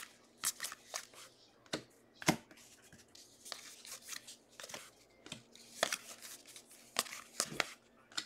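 Baseball trading cards being flipped through by hand, each card slid off the stack with a short flick or snap, irregularly spaced, about fifteen in all.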